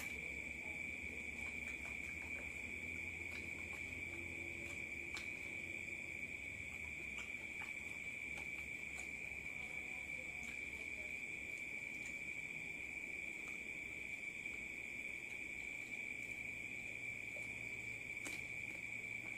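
A steady high-pitched insect trill, like crickets, running without a break. A few faint clicks of eating by hand sit under it.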